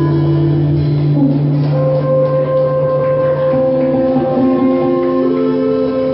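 Instrumental folk music: long held notes that change pitch a few times over a steady low drone, with plucked-string sounds.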